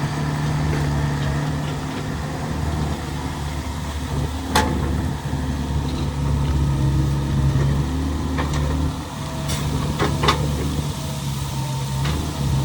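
Excavator's diesel engine running steadily, with a few short, sharp knocks, one a little before the middle and several more in the second half.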